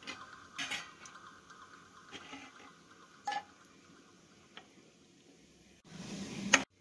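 Whole spices frying in oil in a steel kadai, with a few faint pops and crackles; near the end, cooked dal being tipped from its pot makes a rising rush of liquid that peaks and cuts off suddenly.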